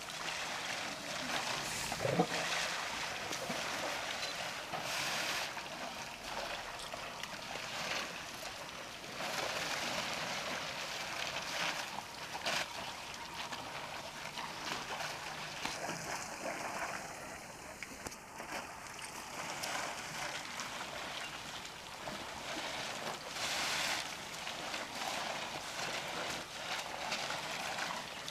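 Water splashing and sloshing as a herd of African elephants drinks at the edge of a waterhole, with a single knock about two seconds in.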